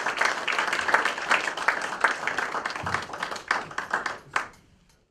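Audience applauding: dense clapping that thins out to a few last separate claps and fades away near the end.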